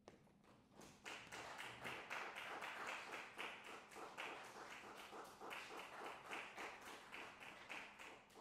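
Faint applause from a small audience, with single hand claps heard apart, starting about a second in and dying away near the end.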